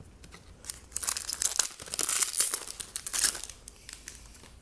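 Plastic or foil trading card pack wrapper crinkling and tearing as it is ripped open. A dense crackle starts about a second in and dies away after about three and a half seconds.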